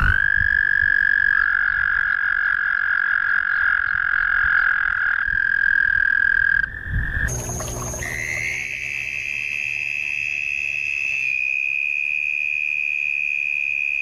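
Toads trilling: one long, steady trill runs for about six and a half seconds, then breaks off. After a short gap a second, higher-pitched trill starts and holds to the end.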